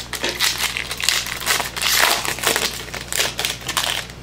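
Plastic and foil trading-card pack wrapper crinkling in the hands as it is worked open: a dense, irregular crackle.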